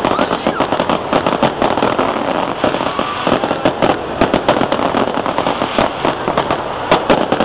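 Fireworks and firecrackers going off: a dense, continuous crackle of sharp bangs, many a second, with louder reports standing out now and then.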